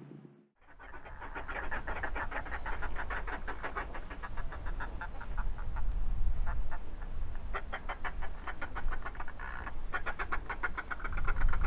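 Northern fulmars cackling: a rapid, throaty chatter in several bouts, over a low rumble.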